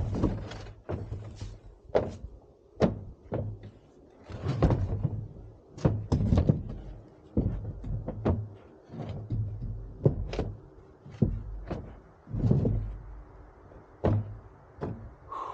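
Heavy field stones being shifted and set down in a pickup truck bed: a string of irregular knocks and thuds of rock against rock and against the bed floor.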